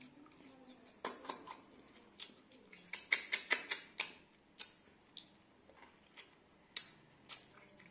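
Close-miked eating sounds: scattered crisp clicks and crackles, with a quick run of them about three to four seconds in.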